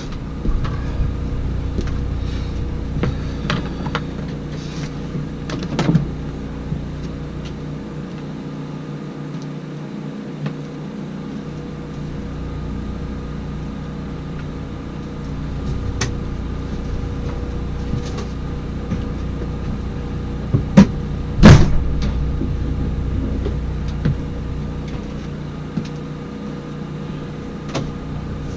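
A steady mechanical hum under scattered knocks and clunks, the loudest a pair of thuds about two-thirds of the way through.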